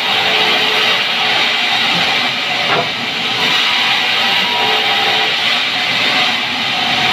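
Sawmill band saw blade cutting lengthwise through a pine log, a loud, steady hiss.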